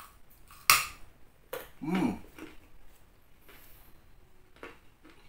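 Mouth noises of eating raw vegetables: a sharp crisp bite just under a second in, then a few softer crunches, with a short hummed voice sound around two seconds in.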